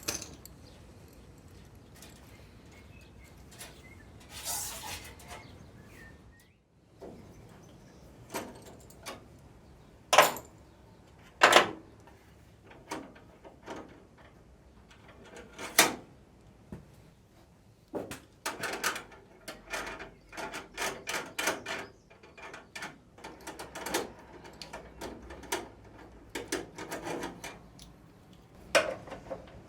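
Irregular clicks, taps and metallic clinks of hand tools working on steel brake lines and their fittings, with two sharper knocks about ten and eleven seconds in and a busier run of small clicks in the second half.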